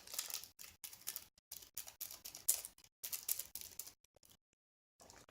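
Light irregular rustling and clicking of small craft supplies being handled, going quiet for about a second near the end.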